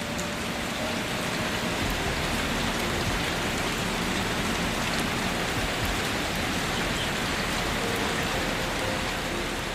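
Steady rain falling: an even hiss of many drops.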